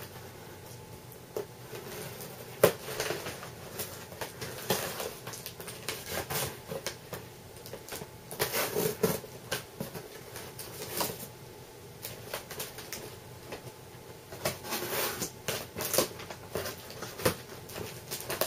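A knife cutting open the tape of a cardboard shipping box: irregular scratching and crackling of tape and cardboard, with scattered sharp clicks and taps.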